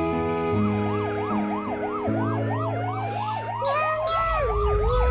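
A siren-like yelping tone, its pitch sweeping quickly up and down about three times a second, with long rising glides joining it midway, over background music with steady bass notes.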